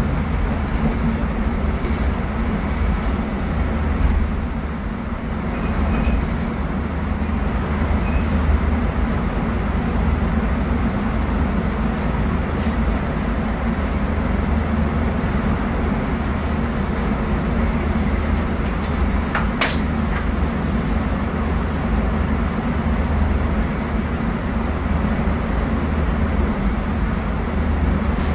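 Scania DC09 five-cylinder diesel of a Scania K250UB midibus running steadily under way, heard from inside the passenger cabin together with road noise. The sound dips briefly about five seconds in, and a single sharp click sounds about twenty seconds in.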